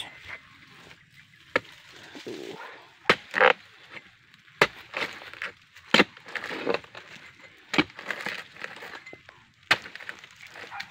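A pole-mounted oil palm harvesting blade chopping into the frond and bunch stalks of a short oil palm, a series of sharp strikes roughly every one to two seconds.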